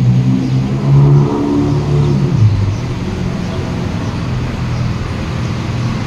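A motor vehicle's engine running, its pitch climbing and then dropping about two seconds in, as when a car accelerates and shifts gear, then going on steadily.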